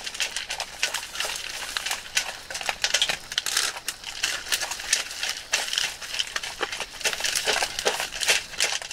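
Three dogs eating from food bowls: a dense, irregular crunching and clicking of chewing, with occasional clinks of bowls.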